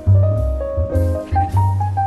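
Instrumental background music: piano chords over a moving bass line.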